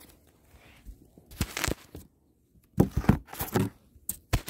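Several short bursts of scraping and crinkling from a cardboard barrier being pushed and rubbed, loudest in a cluster past the middle, with two sharp clicks near the end.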